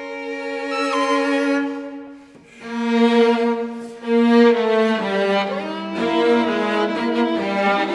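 String quartet of two violins, viola and cello playing slow contemporary chamber music: held notes fade away about two seconds in, then the instruments come back in together with sustained chords and moving lines.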